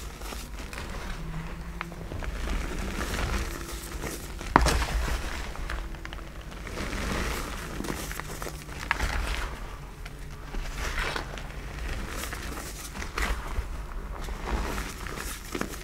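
Gloved hands crumbling and crushing soft black reformed gym chalk blocks into loose chalk powder: irregular soft crunching and powdery crackling, with a few sharper crunches, the loudest about four and a half seconds in.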